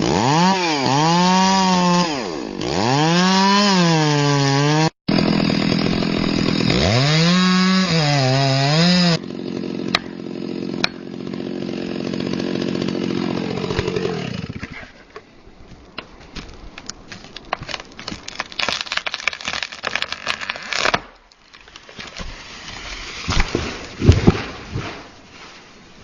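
Chainsaw engine revving up and down again and again, its pitch swooping, with a sudden break about five seconds in. It then runs steadier, and about halfway through gives way to a run of irregular cracks and snaps with a few louder crashes, like wood splitting and breaking during felling.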